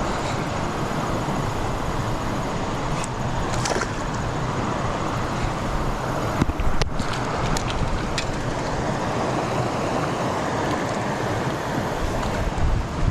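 Steady rushing of flowing creek water, with a few short clicks in the middle.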